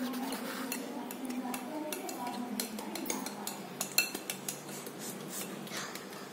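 Metal wire whisk beating cake batter in a glass bowl, its wires clicking and scraping against the glass several times a second, with a sharper knock about four seconds in.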